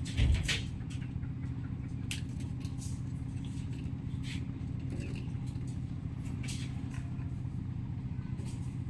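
Steady low hum of a running motor, with a brief low thump just after the start and short high-pitched chirps now and then.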